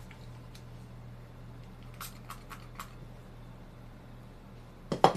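A few light clicks and taps from airsoft gun parts and an oil bottle being handled on the workbench, four quick ones about two seconds in and a sharper clack at the end, over a steady low hum.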